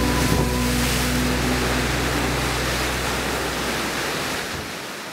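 Rough sea surf breaking and washing over the rocks at the foot of a stone sea wall: a steady rush of waves with wind, fading out near the end.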